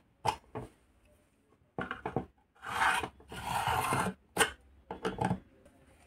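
A screwdriver tip scraping the corner of a microwave's metal control-panel frame to clean it out: short rasping scrapes, two longer ones in the middle, with sharp clicks between.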